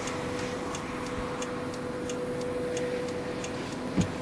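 A car's flasher relay ticking lightly and evenly, about three times a second, over a steady hum and rushing noise inside the car; a low thump about four seconds in.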